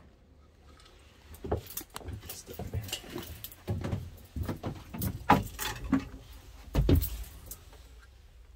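A run of irregular knocks, clicks and rustles starting about a second in, with a heavy thud near the end: handling noise and movement as someone makes their way through a sailboat's cabin.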